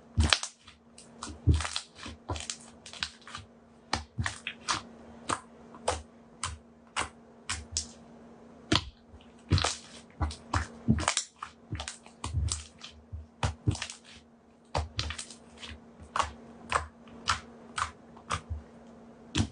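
Slime being pressed and stretched by hand, giving irregular sticky clicks and small pops, a few a second, over a faint steady hum.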